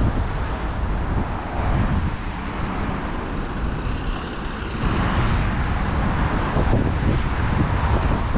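Road traffic: cars passing on the road, with a swell in the traffic about five seconds in. Wind rumbles on the microphone underneath.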